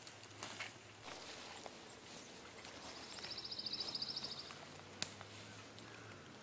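Footsteps crunching through dry leaf litter, with a small bird's rapid high trill lasting about a second and a half near the middle, and a single sharp snap about five seconds in.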